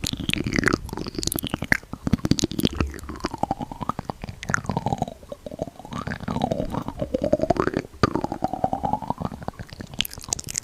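Close-up ASMR mouth sounds: rapid wet clicking and crackling, with a squeaky tone that swoops down and back up several times.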